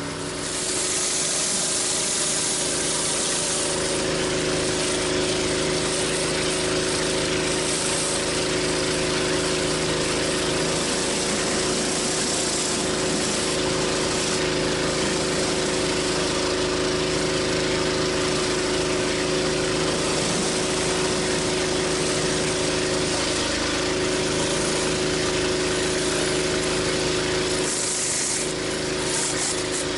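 Pressure washer engine running steadily, under the continuous hiss of high-pressure water spraying from a 14-inch BE Whirl-a-Way surface cleaner as it is pushed over concrete.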